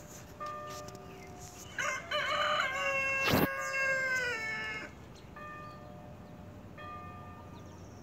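A hand-rung church bell tolling, one stroke about every second and a half, each ringing out and fading. About two seconds in, a rooster crows loudly over it for about three seconds, the call wavering and then falling in pitch, with one sharp click in the middle.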